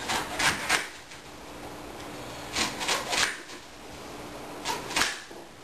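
Three short bouts of scraping, about two seconds apart.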